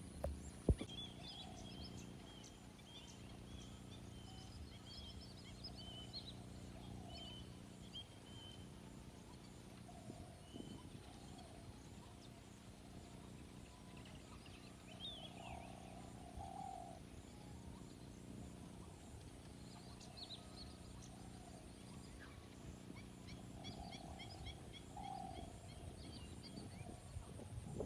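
Several birds calling: short high chirps and twitters scattered through, and lower repeated calls every few seconds. A steady low hum runs underneath, with one sharp knock just after the start.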